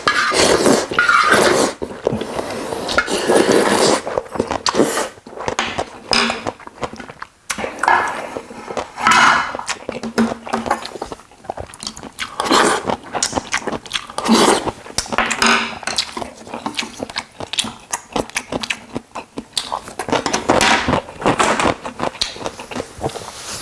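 Close-miked eating of ramyun: wet slurping of noodles and broth with chewing, in repeated noisy bursts, and sharp clicks of a spoon against a metal ramen pot.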